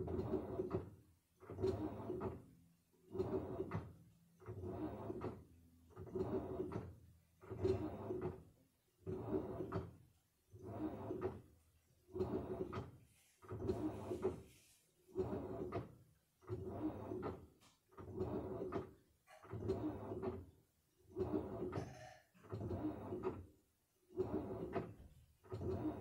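Samsung washing machine drum turning the wash, a swishing slosh of clothes and water repeating evenly about every one and a half seconds.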